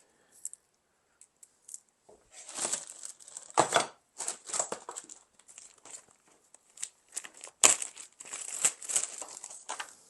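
Irregular rustling and scraping noises from hand work on engine parts, with two sharper knocks, about a third of the way in and again near three quarters.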